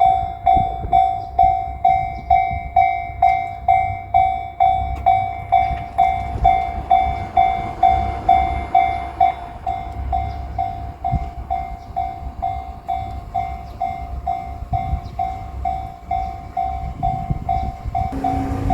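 Japanese level-crossing warning bell ringing its repeated 'kan-kan' about twice a second, over the low rumble of a JR Shikoku 2700 series diesel express railcar pulling out. A steady low engine note comes in near the end.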